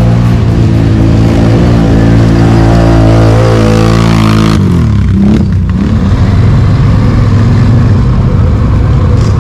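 ATV engine running hard at high revs, its pitch holding steady and creeping up, then dropping off abruptly about four and a half seconds in and coming back with rougher, uneven revving.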